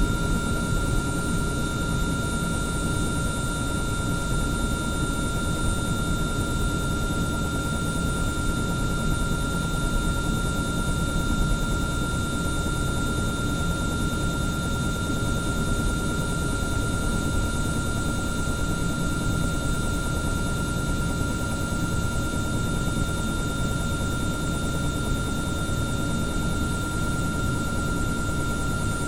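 Helicopter running steadily: a constant high whine held over a low rumble, with no change in pitch or level.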